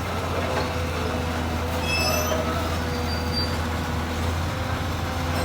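Komatsu PC200 hydraulic excavator running, a steady diesel drone with a thin steady whine over it.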